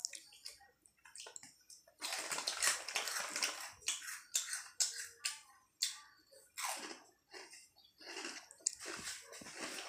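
Crunching crisp multigrain chips and rustling the crinkly foil chip bag as a hand reaches in for more, with a dense stretch of crinkling about two seconds in and short crackly crunches after it.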